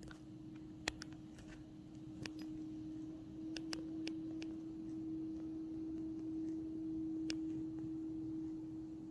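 A steady hum holding a single low pitch that grows slightly louder, with scattered light clicks and ticks.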